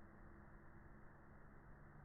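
Near silence: a faint steady hiss with a low hum, no distinct sound.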